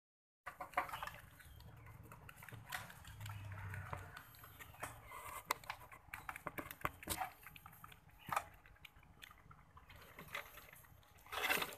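Baby mini rex rabbits shuffling in the hay and dried leaves of a wooden nest box: soft rustling with scattered small clicks and scratches.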